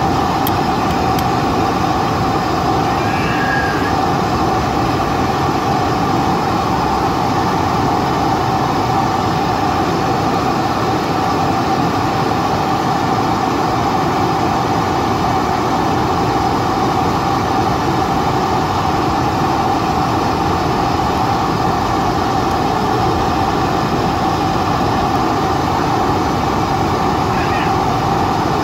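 Steady cabin noise inside a Boeing 747-400ER taxiing after landing: the engines run at low taxi power, giving a constant whine over a low rumble.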